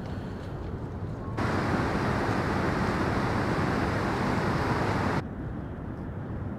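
Steady rushing noise of river water and wind. It jumps abruptly louder about a second and a half in, holds for about four seconds, then drops back just as suddenly.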